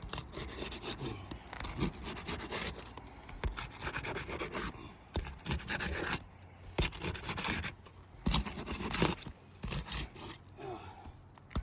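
Steel flat pry bar scraping and rubbing against brittle asphalt shingles as it is worked under them, in irregular strokes with a few sharper scrapes.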